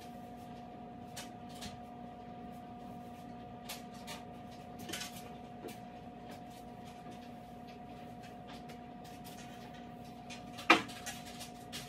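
Faint scattered taps and rustles of a table being wiped down with disinfecting wipes, with one sharp knock near the end, over a steady hum.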